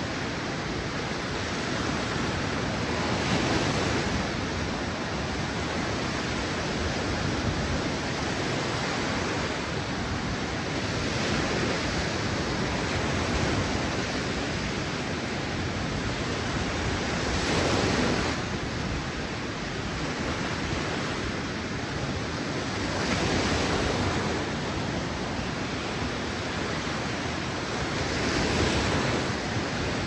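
Small waves breaking and washing up on a sandy shore: a continuous rush of surf that swells every five or six seconds as each wave comes in, loudest about halfway through.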